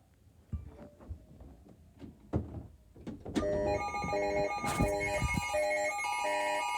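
A few knocks and handling noises, then about halfway in a Wireless Emergency Alert attention signal starts on a mobile phone: a loud, harsh alarm of several tones pulsing on and off in a steady rhythm, announcing a snow squall warning.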